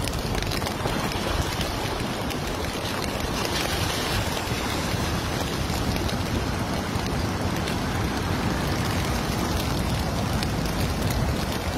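Steady rushing of a flood-swollen river running high and pouring over a weir, with wind buffeting the microphone in a low rumble.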